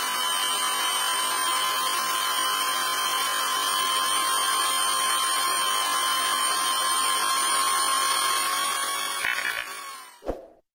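Electric hand drill running steadily, spinning a homemade stirring rod to mix water into a pail of paint, with a constant whine over the motor noise; it fades out near the end.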